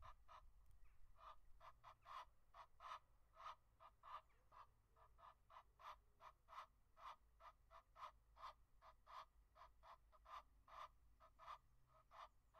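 Egyptian goose honking, a faint, unbroken series of short calls at about three a second.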